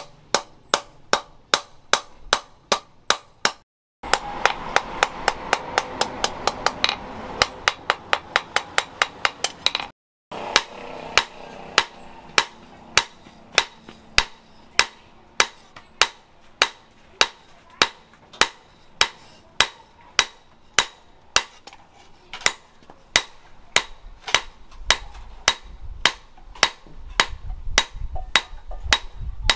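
Hand hammer striking a red-hot steel rebar knife blade on an anvil: a steady run of sharp, ringing blows, about two to three a second, faster for a stretch after the first break. The run stops dead twice, about 4 and 10 seconds in.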